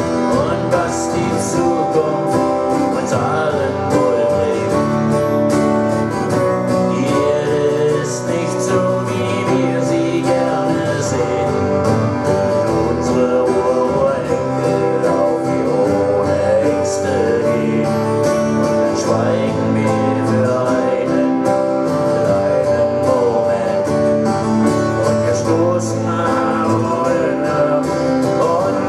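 Live band playing a rock song, guitars to the fore, with cymbal strikes.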